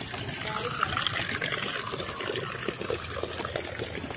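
Water trickling and splashing in small, irregular splashes.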